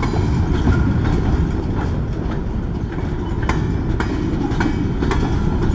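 Freight train of covered hopper cars rolling past: a steady low rumble of wheels on rail, with irregular clicks as the wheels pass over rail joints.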